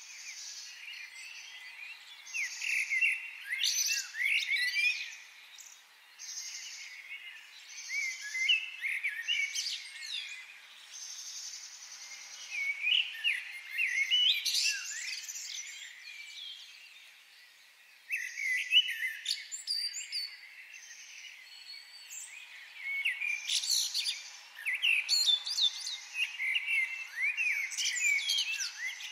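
Several birds chirping and twittering in bursts of quick rising and falling calls every few seconds, over a fainter high buzz that repeats about once a second.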